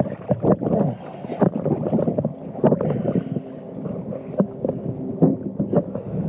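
Water sloshing and gurgling close to the microphone, with irregular short knocks and bursts.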